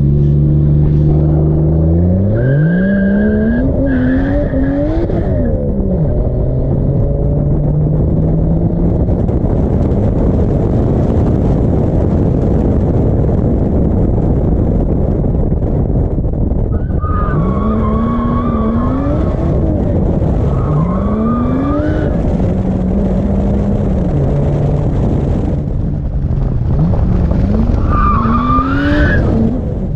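Drift car's engine revving hard in repeated rising climbs, with tyres squealing in a high wavering tone during slides in three stretches, near the start, in the middle and near the end.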